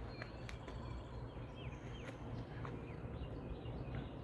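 Faint short bird chirps and a few light clicks over a low steady background rumble.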